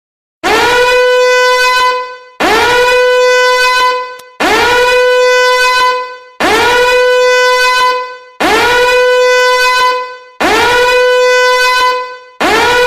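Meme ringtone of a loud horn blast repeated seven times, one every two seconds. Each blast swoops up at the start, then holds one note for about a second and a half.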